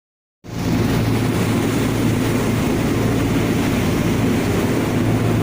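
A motorboat's engine running steadily under way, a constant low hum under a loud rush of wind and water; it cuts in suddenly about half a second in.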